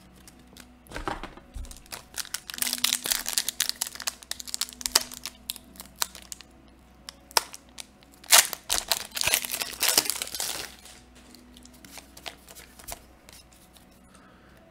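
Foil Commander Legends draft booster pack wrapper crinkling and tearing as it is opened, in two stretches of dense crackle, the louder one starting about eight seconds in.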